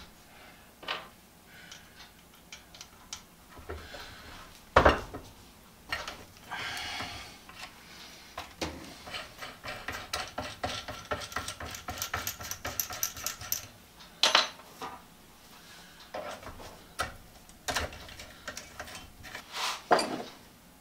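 Keyless drill chuck being hand-tightened onto an arbor shaft, ratcheting in a long run of rapid clicks midway. Around it, metal parts clink and knock as they are handled, with one sharp knock about five seconds in.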